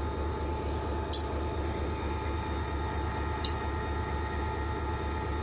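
EMD GP40-2 diesel-electric locomotive idling with a steady low rumble and a faint whine, with a few short ticks.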